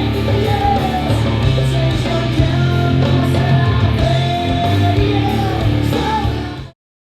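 Rock song with electric guitar and bass playing back through hi-fi loudspeakers in a reverberant room, cutting off abruptly near the end.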